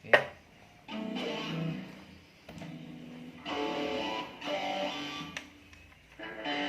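Electric guitar chords strummed a few at a time with short pauses, played through a Korg AX1000G multi-effects processor under test. The repairer finds its delay and modulation sound dirty and noisy.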